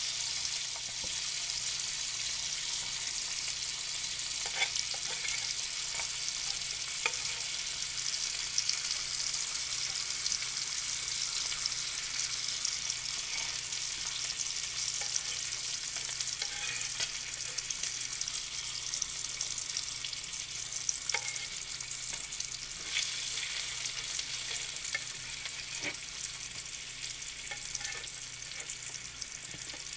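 Bacon frying in an electric fry pan: a steady, dense sizzle of hot fat, with scattered light clicks and scrapes as a metal fork turns the strips.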